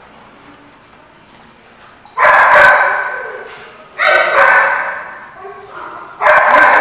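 A dog barking loudly three times, about two seconds apart, each bark trailing off with an echo in a hard-floored room.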